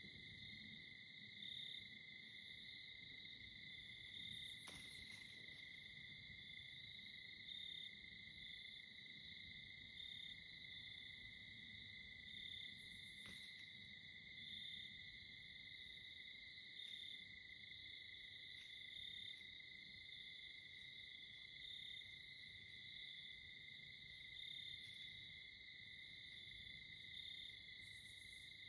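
Faint, steady chorus of crickets trilling continuously, with a couple of faint clicks.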